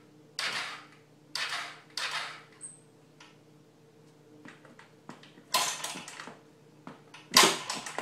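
Kick-starter of a 110cc pocket bike engine being stomped, about five sharp metallic rasping strokes, the loudest near the end. The engine does not fire.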